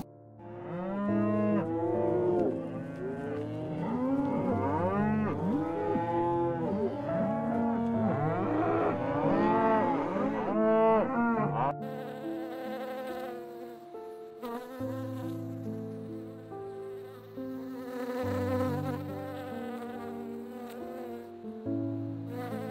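A herd of blue wildebeest calling, many overlapping nasal grunts that rise and fall in pitch, over steady background music; the calls cut off suddenly about halfway through, after which a honeybee's buzzing goes on under the music.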